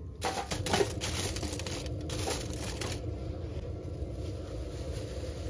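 A plastic bag crinkling as chestnuts are tipped out of it onto aluminium foil on a stove top: a rustling with a few small knocks that stops about three seconds in.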